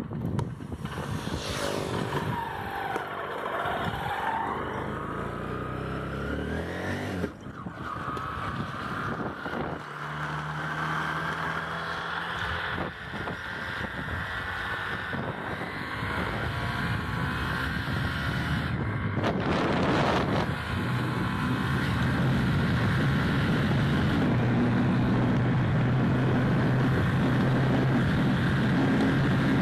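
Honda CBF150/CB150 Invicta single-cylinder engine, bored out to 180 cc with a big-bore cylinder kit, accelerating hard on a top-speed run. The engine pitch climbs and drops at several gear changes, then holds steady at high revs near top speed for the last several seconds, over a rush of wind noise.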